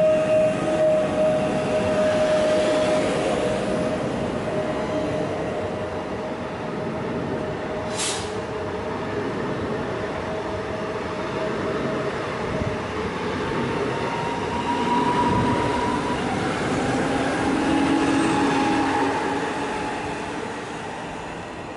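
PKP Intercity electric passenger trains: one running past along the platform with a steady whine that fades out about halfway through, then another electric multiple unit approaching, its whining tones swelling near the end. A short sharp click about a third of the way in.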